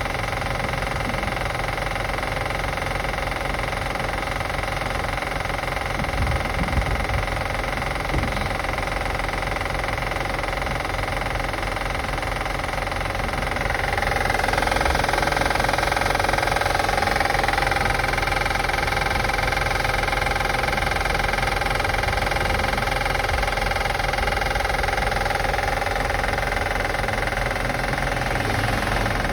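A 2005 Acura TL's V6 engine idling steadily with the clicking noise the owner is assessing. About halfway through it gets louder, with a tone that dips and rises in pitch before holding steady.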